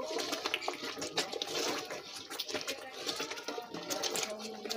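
Thick red chile sauce for mole simmering and spattering in a large enamel pot while a wooden spoon stirs it: a wet hiss with many small pops.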